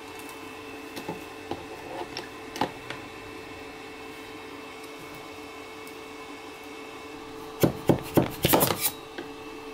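A resin 3D printer's build plate being handled over a plastic tub, with a few light knocks, then near the end a run of loud sharp scraping clicks as a metal scraper pries the resin-printed skull off the plate. A faint steady hum runs underneath.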